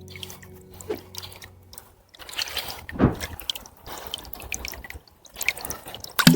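Water splashing and dripping in short, irregular bursts, with two louder knocks, about three seconds in and near the end.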